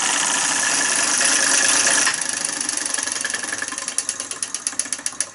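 Empire B33 electromagnetic solenoid toy engine running with a loud, dense clatter. About two seconds in, the clatter drops away into a string of sharp mechanical clicks that slowly space out and fade.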